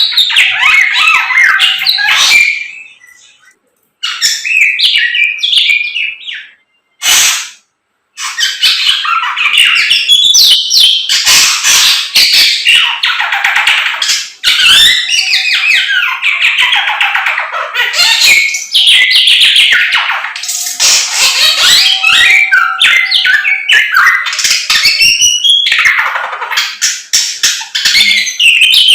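Caged Samyong songbird singing loudly in long, rapid, varied phrases of high chirps and whistles. It breaks off briefly about 2.5 s and 7 s in, then sings without a break from about 8 s on.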